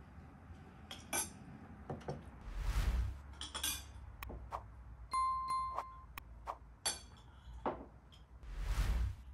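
Glass and cutlery clinking at a dinner table, overlaid with subscribe-button animation sound effects: a whoosh, sharp clicks, a steady one-second bell-like ding about five seconds in, and a second whoosh near the end.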